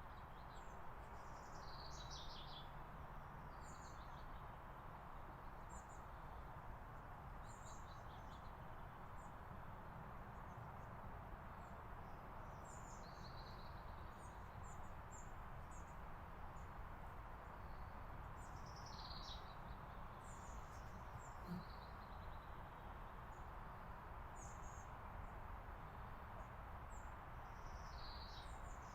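Faint, high, thin bird calls, short chirps and falling notes scattered every second or two, over a steady low background rumble.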